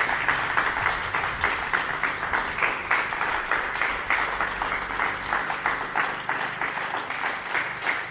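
A group of about twenty people applauding, a steady stream of hand claps.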